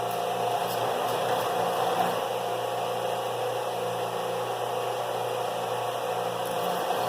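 A small electric motor running steadily with a constant hum, with a few faint scratchy ticks about a second in.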